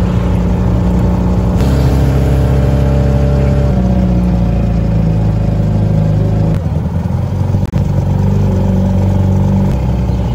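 Tuk-tuk engine running steadily, heard from the passenger seat of the open cab, its pitch stepping up and down a few times.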